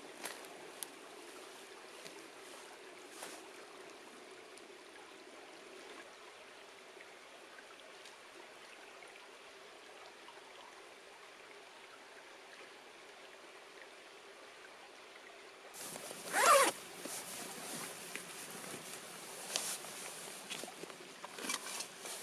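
Faint, steady background, then a zipper pulled once in a quick rasp about two-thirds of the way through, followed by a few light handling clicks.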